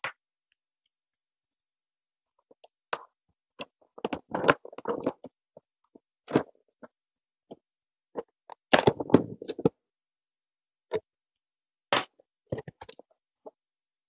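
Cardboard shipping box being opened by hand: scattered scrapes, taps and rustles as the packing tape and top flaps are worked open, in two busier flurries about four and nine seconds in.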